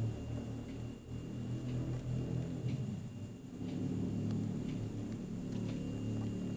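A low steady hum with a faint high whine above it and a few soft clicks.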